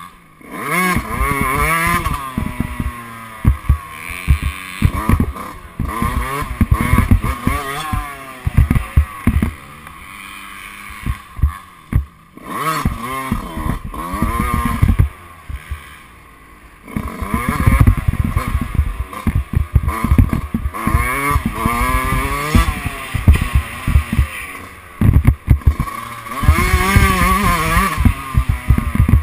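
Dirt bike engine heard from on board, revving up and dropping back again and again as the rider accelerates, shifts and rolls off the throttle, with brief lulls about twelve seconds in and again a few seconds later.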